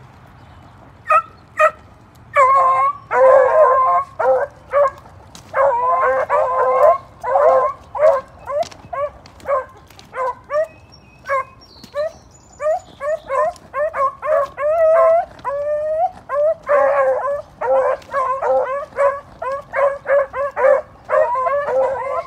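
Three beagles baying on a rabbit's scent, the pack in full cry: short choppy bays and yips from several voices overlapping, starting about a second in and running almost without a break.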